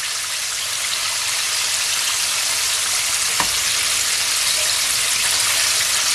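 Chicken pieces deep-frying in hot oil, a steady loud sizzle. The chicken is done and floating at the top. There is one light click about three and a half seconds in.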